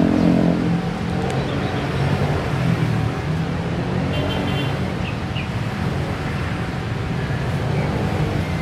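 Steady road traffic noise, with a motor vehicle engine running.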